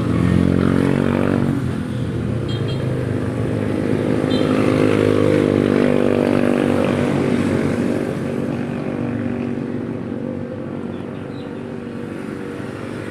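A motor vehicle engine running, its pitch rising and falling as it revs, fading after about eight seconds.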